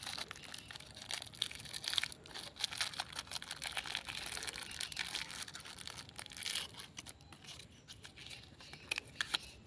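Small clear plastic wrapper crinkling and tearing as it is worked open by hand, a dense patter of crackles that thins to a few scattered clicks near the end.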